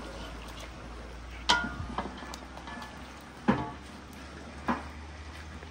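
A long spoon stirring meat in a large metal pot, knocking against the pot three times, about a second and a half in, then twice more later; the first knock rings briefly like metal.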